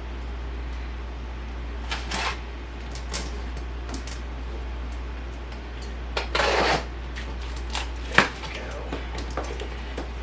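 Kitchen handling sounds: scattered light clicks and knocks, a brief rustle about six seconds in and a sharp clack about eight seconds in, over a steady low hum.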